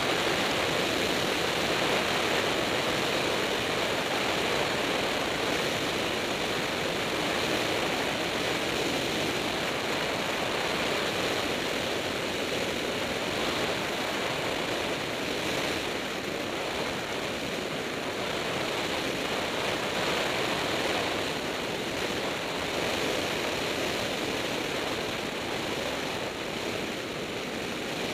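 Single-engine propeller airplane in flight on approach, its engine and propeller drone mixed with heavy wind rush over an outside-mounted microphone; a steady noise whose level eases slightly over time as power comes back for landing.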